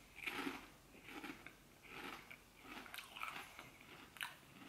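A mouthful of crunchy potato chips with dip being chewed, a crisp crunch a little more than once a second.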